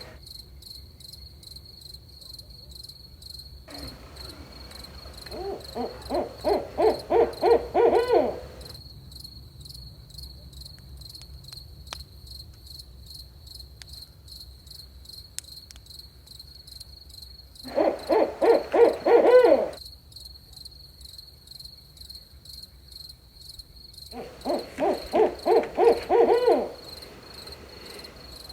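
Barred owl hooting in three bouts of quick, rhythmic hoots, with long pauses between them. A cricket's steady high trill goes on underneath.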